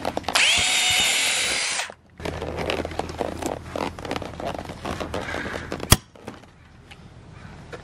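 Electric drill whining up to speed and boring through the plastic bumper and lip for about a second and a half. Then come the clicks and scrapes of a Stanley hand rivet gun being worked, with one sharp snap just before six seconds in as the rivet is pulled.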